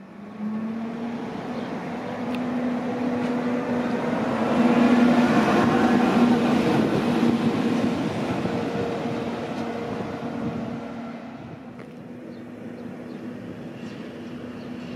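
Matterhorn Gotthard Bahn HGe 4/4 II electric rack-and-adhesion locomotive No. 5 running light past on a shunting move around its train. A steady hum runs throughout. The sound grows louder over the first several seconds and fades as the locomotive moves away.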